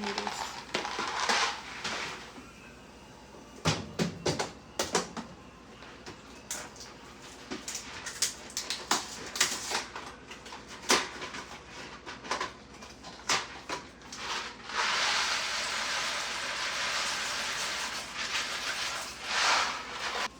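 Kitchen handling sounds while cooking: a scattered series of clicks, knocks and clatter from packaging and cookware, then about five seconds of steady hiss near the end.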